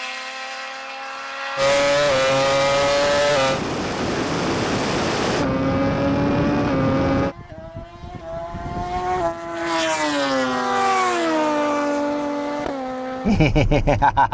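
Race vehicles running flat out in a drag race: a high, steady engine-like note heard in several short cut-together shots, with the pitch sliding gradually lower towards the end.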